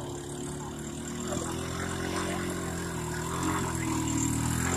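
Side-by-side utility vehicle's engine running as it drives through mud, a steady drone that slowly grows louder as it comes nearer.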